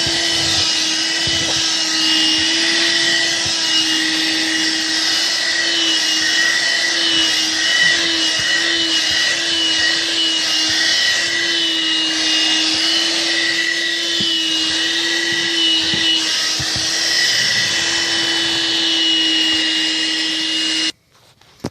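Armor All handheld car vacuum running steadily, a motor whine with a slight wobble over the rush of suction. It switches off abruptly near the end.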